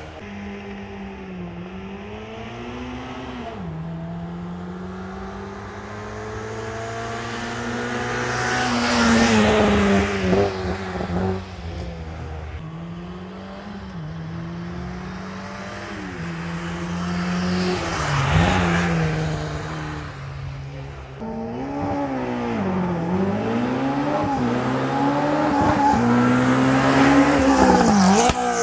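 Racing car engines accelerating hard through the gears, the pitch climbing and dropping back at each gear change. Cars pass loudest about nine and eighteen seconds in and again near the end.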